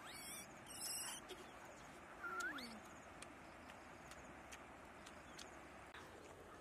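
An animal's short whining call about two seconds in, sliding down in pitch, with a brief rising call and a couple of high blips in the first second, over a faint steady hiss.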